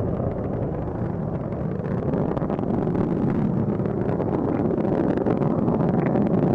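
Space Shuttle Atlantis climbing on its two solid rocket boosters and three main engines: a steady, crackling roar of rocket exhaust that grows a little louder as the main engines throttle back up.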